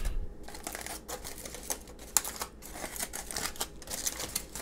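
Aluminium foil packet being pulled open by hand, crinkling in irregular crackles, with a sharper crackle about two seconds in.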